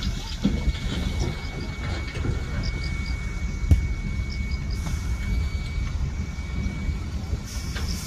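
Hyundai dump truck running with its bed raised while a load of soil slides out onto the pile: a steady low rumble with a faint steady high whine, and one sharp knock about three and a half seconds in.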